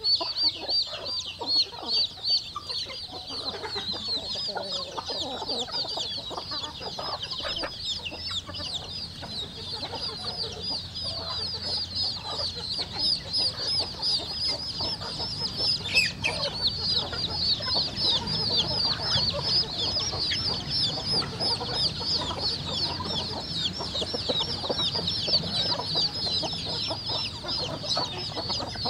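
A flock of chickens: a dense, unbroken chorus of high, quick peeps from many chicks, with hens clucking lower underneath.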